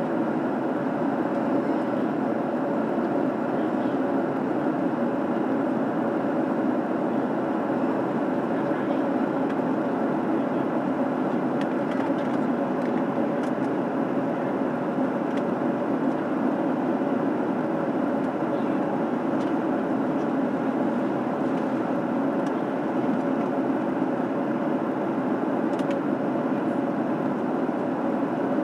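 Steady cabin noise of a Boeing 737 in flight: an even rush of airflow and engine drone, with a faint steady hum.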